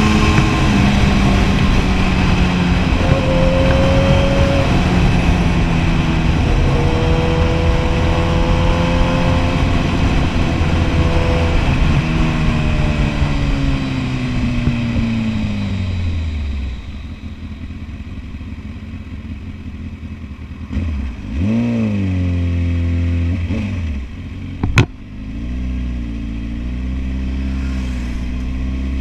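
Kawasaki Ninja ZX-10R's inline-four engine under way, its pitch falling steadily as the bike slows over the first half. Then it runs quieter, with one quick rev blip, a single sharp click, and a low steady engine note near the end.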